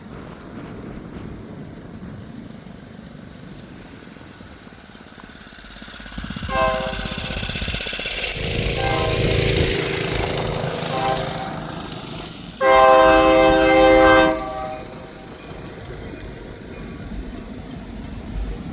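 Freight train locomotive horn sounding a series of long blasts, the last one the loudest, over the growing rumble of the approaching train. Wind buffets the microphone in the first few seconds.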